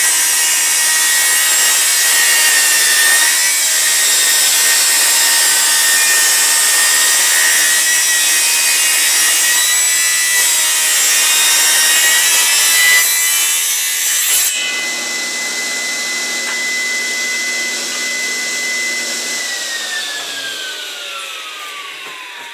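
Bench-mounted circular saw ripping wood into thin strips, a loud steady cutting noise over the blade's whine. About fourteen seconds in the cut ends and the blade spins free with a steady whine. A few seconds later it winds down with a falling whine.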